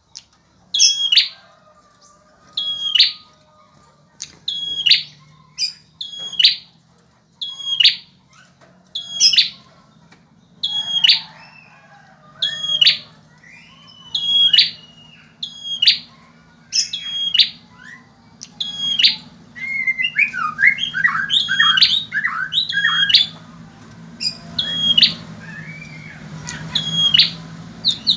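Male prinia (prenjak) singing: a loud, sharp call repeated about once a second, each a quick downward sweep ending in a short note, with a faster run of lower chirps about twenty seconds in. A faint low hum runs underneath.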